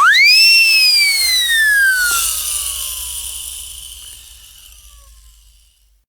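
Cartoon siren whistle: one whistle swoops up fast to its peak within half a second, then glides slowly downward and fades out over about five seconds. An airy hiss joins it about two seconds in.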